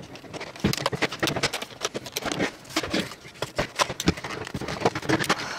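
Stiff plastic clamshell packaging being cut with a utility knife and worked apart by hand: a run of irregular crackles, clicks and scrapes.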